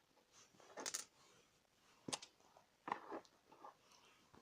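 Faint, scattered sharp clicks of plastic Lego bricks being handled and fitted together, several over a few seconds.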